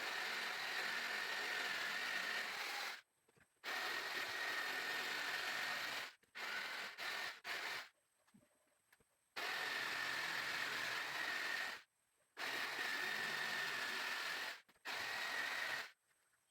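An electric saw cutting plywood in repeated runs of a few seconds, with a steady high whine over the cutting noise. It stops and starts about six times, including a few quick short bursts in the middle.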